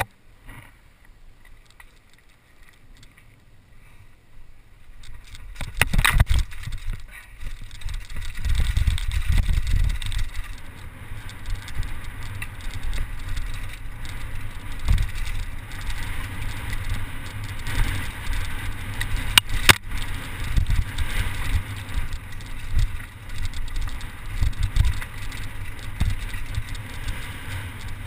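Mountain bike riding over a rocky dirt trail: the tyres crunching over stones and the bike rattling, with wind buffeting the microphone as an uneven low rumble. Quieter for the first five seconds, then loud, with a few sharp knocks from impacts.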